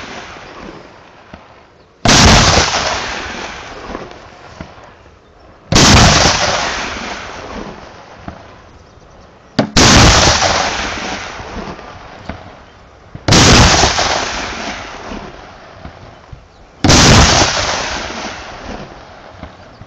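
Five loud booms from plastic barrels ignited one after another with a torch on a pole, about every three and a half seconds, each fading slowly in a long tail. Carbide (acetylene) barrel blasts.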